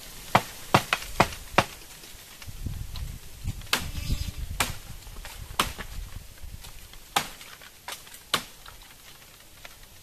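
Bamboo stalks being chopped with a blade: a quick run of four sharp strokes about two and a half a second, then single strokes at uneven gaps. A low rustle of the stalks comes in the middle.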